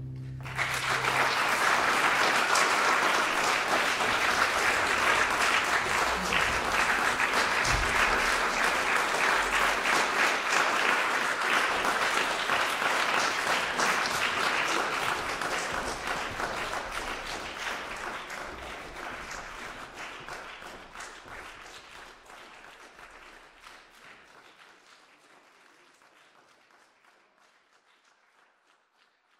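Audience applause breaking out as the last string chord dies away, a dense, steady clapping that thins and fades out over the second half.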